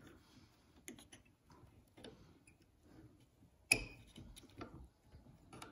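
Faint metal clicks and scrapes as a punch pushes the stiff spring-loaded plunger of an SKS rifle's gas tube lever back into place, with one sharper click about three and a half seconds in.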